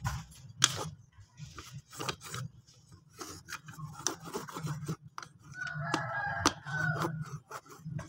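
Cloth rag rubbing and wiping the housing of a power steering worm gearbox, with scraping and sharp knocks and clinks as the housing is handled and turned. A chicken clucks in the background about six seconds in.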